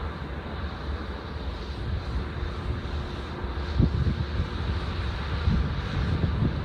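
Steady low rumble of a freight train on the line, with low gusts of wind buffeting the microphone from about halfway through.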